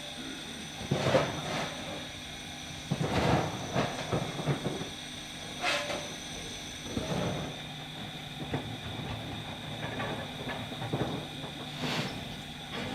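Saxon IV K narrow-gauge steam locomotive standing in steam, hissing steadily with irregular louder blasts of escaping steam. Near the end steam gushes from the open cylinder drain cocks.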